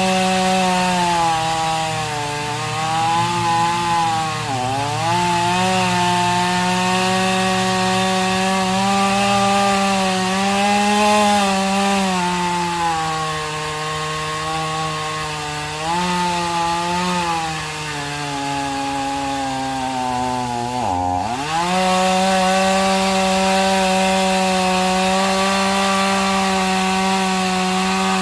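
Two-stroke chainsaw running at high revs while cutting through the roots of an uprooted oak tree's root ball. Its engine pitch dips sharply under load about four and a half seconds in, and again deeply about twenty-one seconds in, then recovers each time.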